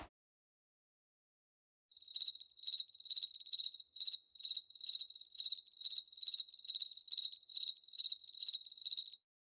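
Crickets sound effect: after about two seconds of silence, a cricket chirps at a steady pace of about two high chirps a second, each a short trill, then stops shortly before the end.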